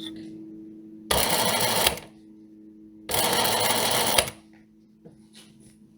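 Sewing machine stitching in two short runs of about a second each, the second a little longer, with a few light clicks of the mechanism near the end.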